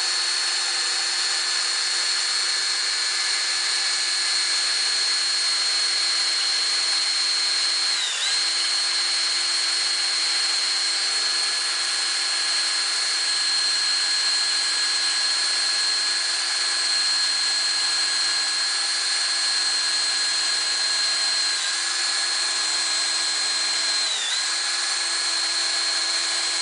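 Electric drill running steadily as it bores a pocket hole through 3/4-inch wood stock in a pocket-hole jig, its pitch dipping briefly under load three times.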